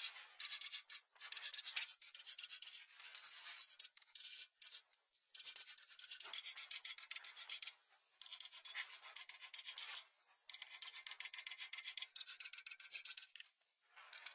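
A crayon scribbling back and forth on paper in quick, even strokes, several a second, in runs of a second or two with brief pauses.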